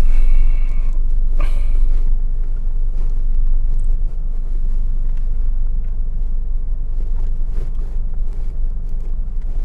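Steady low rumble of a car on the move, engine and road noise heard from inside the cabin, with a brief higher tone and a short knock in the first two seconds.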